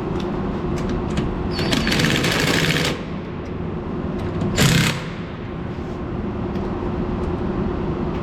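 Impact wrench working the wheel's lug nuts in two bursts: a longer one of more than a second starting about one and a half seconds in, and a short one about half a second long near the middle. A steady low hum runs underneath.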